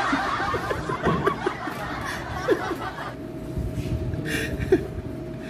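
A man chuckling and laughing, breathy and broken, easing off about halfway through.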